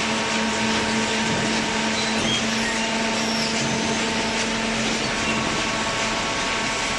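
Hydraulic cardboard baler running: a steady machine noise with a constant motor and pump hum.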